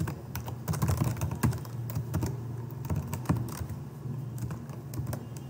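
Computer keyboard being typed on: quick, irregular key clicks over a steady low hum.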